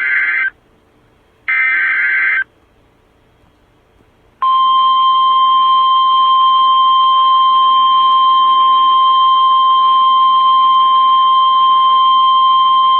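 NOAA Weather Radio Emergency Alert System signal. Two short bursts of SAME header data screech, about a second each and a second apart, end the alert header. Then, about four seconds in, the steady single-pitch 1050 Hz warning alarm tone sounds for about nine seconds.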